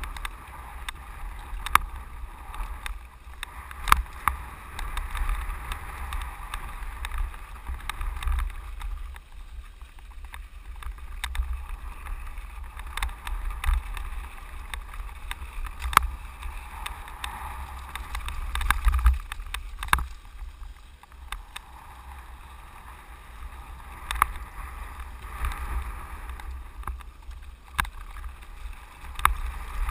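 Mountain bike riding downhill: wind buffets the microphone in a steady low rumble while the tyres hiss and crunch over dirt and gravel. Sharp knocks and rattles from the bike over bumps come every few seconds.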